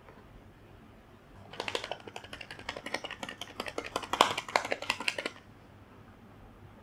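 Plastic rice-ball shaker mold being shaken to roll rice into balls: a rapid, irregular clatter of clicks that starts about a second and a half in and stops after about four seconds.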